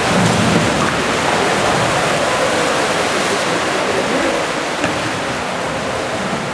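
Steady wash of water splashing and churning as kayak paddles work the pool, echoing through an indoor pool hall.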